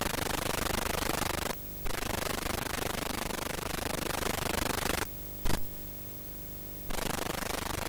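Steady hiss of blank analogue videotape. It cuts out twice to a faint hum, briefly about one and a half seconds in and again for nearly two seconds from about five seconds in, with a short pop in the middle of the second gap.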